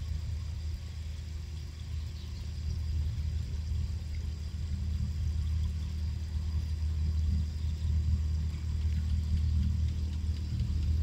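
Steady low rumble that flickers in level throughout.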